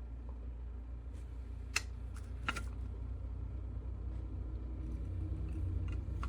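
Single-serve pod coffee brewer running mid-brew: a steady low hum, with a couple of faint clicks about two seconds in.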